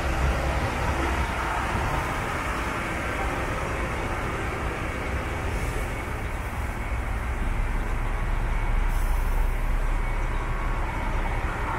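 Steady running rumble of a slow-moving train, heard from inside an open-windowed observation car as it rolls along a station platform.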